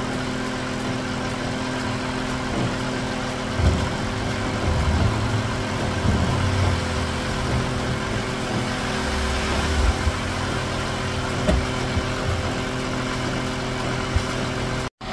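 Steady drone of a Renault car transporter's engine and loading gear running as a car is drawn up onto its bed, with a few low thuds.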